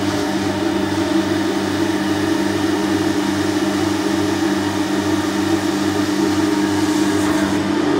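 Carpet extraction machine running steadily as its wand is drawn across a rug: a constant motor hum over a rushing suction noise.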